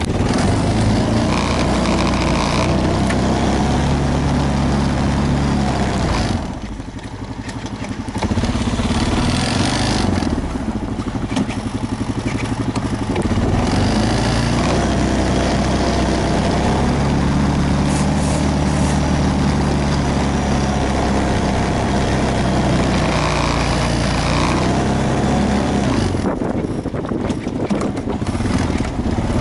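An engine running steadily with a low hum, easing off briefly twice.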